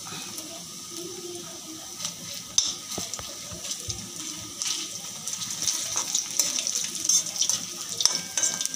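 Crushed ginger and garlic sizzling in hot oil in a kadhai: a steady hiss with crackling pops that get busier from about halfway.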